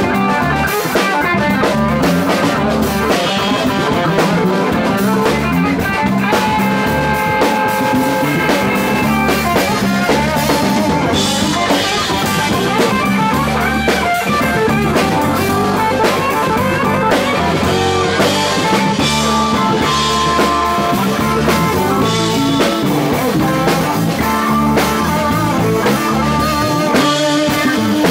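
Live blues band playing an instrumental passage: electric guitars over bass and a drum kit, with no singing.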